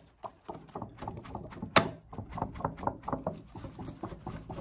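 Hand fan flapping rapidly over a wood fire to fan the flames, several quick strokes a second. One sharp crack about two seconds in stands out as the loudest sound.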